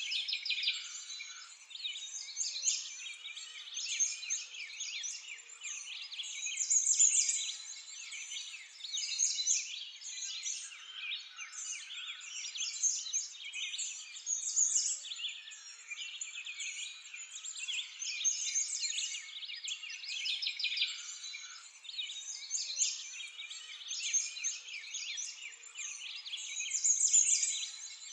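Many small birds chirping and twittering continuously in a dense chorus of short, high calls that swell and fade every few seconds.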